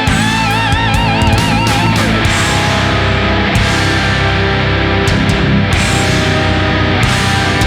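Heavy rock background music: electric guitar with bent, vibrato notes over a steady, loud backing.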